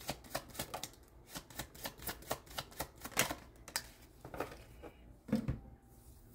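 Tarot deck being shuffled and handled by hand: a quick run of crisp card clicks at about four a second, then a single duller thump a little after five seconds in.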